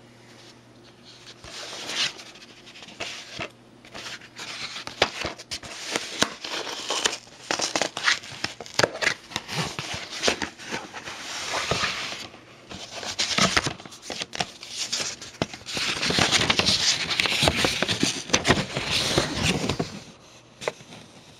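Wrapping of a large postal packet being handled and opened by hand, crinkling and crackling in irregular bursts, loudest in a long stretch near the end.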